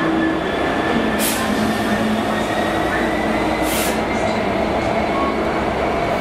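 Freightliner Class 66 diesel locomotive running as it passes close by hauling flat wagons: the EMD two-stroke V12 engine gives a steady rumble with a low hum. Two short hisses come about a second in and near four seconds in.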